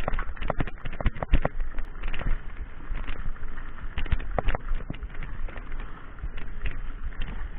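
Mountain bike jolting down a rocky dirt trail at speed: a rapid, irregular clatter of knocks and rattles from the bike over the rocks, over steady tyre noise on dirt and a low wind rumble on the camera microphone.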